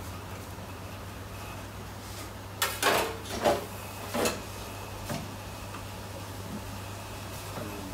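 Kebab-shop kitchen work: a steady low hum of equipment, with a few short scraping and clattering sounds between about three and five seconds in, as chicken doner meat is cut from the spit.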